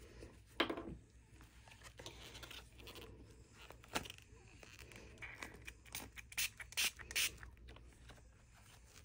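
Quiet rubbing and scraping of a flexible silicone mold being handled and flexed. There are a few short, sharp spritzes from a pump spray bottle about six to seven seconds in.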